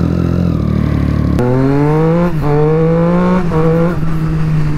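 Triumph Street Triple's warmed-up three-cylinder engine pulling away: it runs low and steady at first, then the engine note rises as the bike accelerates, dropping twice at gear changes before holding steady.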